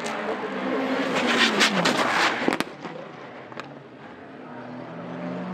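Turbocharged K24-swapped EG Civic time-attack car's engine. Its revs fall about a second and a half in, with a loud run of exhaust pops and crackles as the driver lifts off. It then quietens, and the engine note comes back near the end.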